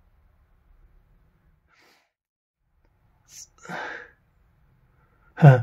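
A man's breathy exhale about three and a half seconds in, then a short, loud burst of his voice near the end, with little else to hear before it.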